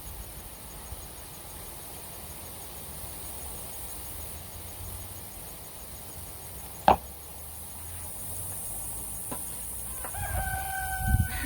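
A rooster crowing near the end: one long, steady-pitched crow that wavers as it trails off. A single sharp click comes a little past the middle, over a low steady rumble.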